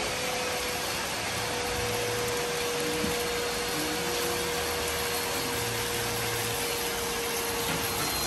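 Water spraying steadily from a hose's spray nozzle onto a dog's long wet coat, a constant hiss with a faint steady hum underneath that stops near the end.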